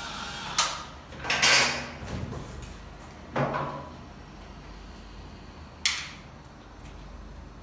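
Knocks, clunks and a brief scraping rush from wooden cabinet parts being handled and fitted: a sharp knock about half a second in, a longer scrape around a second and a half, another knock a little later, and a sharp clack about six seconds in.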